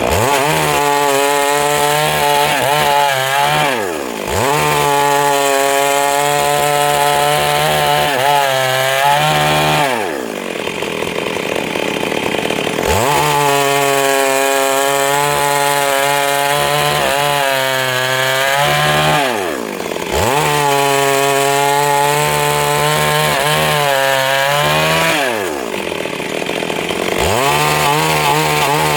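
Stihl MS 382 two-stroke chainsaw running at high revs, cutting through wood. Four times its pitch sinks and then climbs back up.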